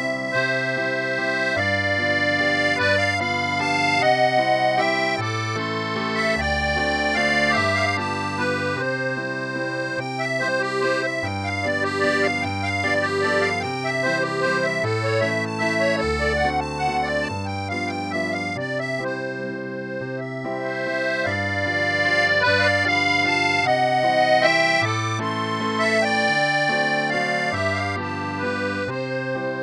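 Background music played on accordion: a melody of held notes over bass notes that change every second or two.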